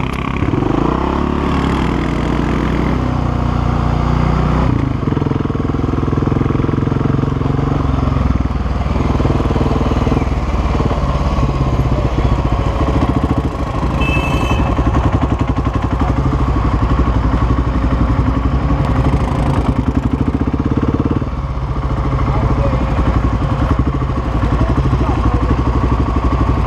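BMW G650X Challenge's single-cylinder engine running under way on a dirt trail, heard from on the bike, its note shifting several times with throttle and gear changes. Near the end it drops as the bike slows to a stop.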